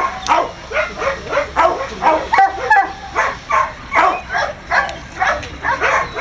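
Tricolour hound on a lead whining and yipping in a run of short, pitched calls, about three a second.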